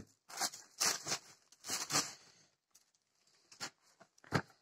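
Plastic packaging wrap rustling and crinkling in irregular bursts as it is pulled off a small boxed toolkit, then a few light clicks and a soft thump as the cardboard box is handled near the end.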